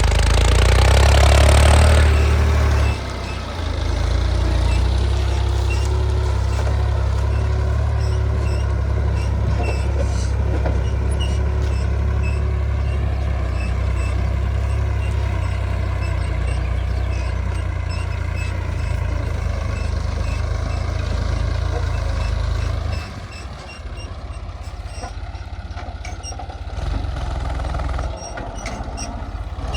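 Heavy diesel machinery running with a steady low engine rumble, louder in the first couple of seconds, falling away about three-quarters of the way through and partly picking up again near the end.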